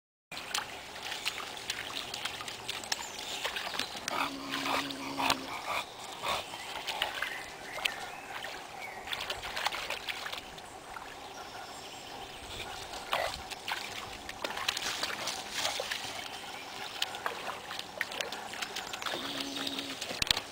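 Bulldogs wading and splashing through a shallow muddy puddle, with scattered small splashes, clicks and rustling through the grass, and two brief pitched calls, one about four seconds in and one near the end.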